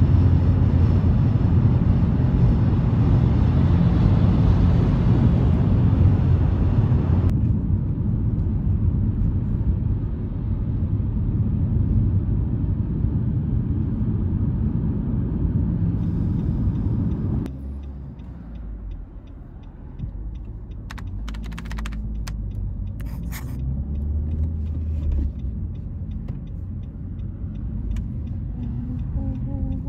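Steady low rumble of a moving vehicle. The sound changes abruptly about 7 seconds in and again about 17 seconds in, as if cut between takes, with a few brief clicks around 21 to 23 seconds.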